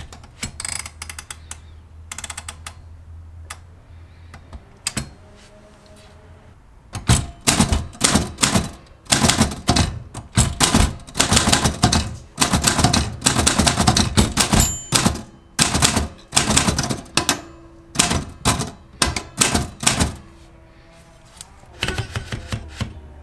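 Manual typewriter being typed on: a few scattered key strikes at first, then quick runs of keystrokes with short pauses between words, and a last short run near the end.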